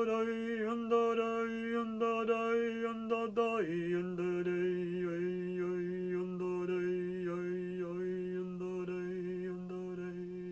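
A woman's voice chanting in long sustained tones. One note is held, then about three and a half seconds in the voice steps down to a lower note and holds it, with the vowel colour shifting as it goes.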